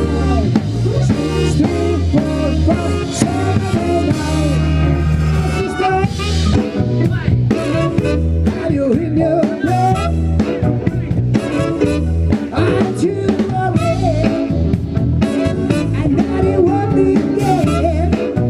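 Band music with no vocals: a full drum kit with snare and bass drum playing over bass notes and a bending melodic line.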